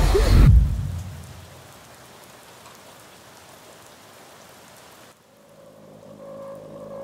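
A steady, even hiss of water, like rain on a water surface, after a louder sound dies away in the first second. About five seconds in the hiss cuts out and a steady hum fades up.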